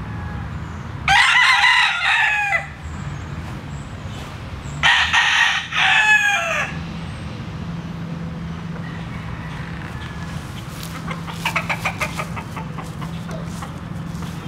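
Rooster crowing twice, each crow about a second and a half long. Later comes a quieter burst of quick clucks.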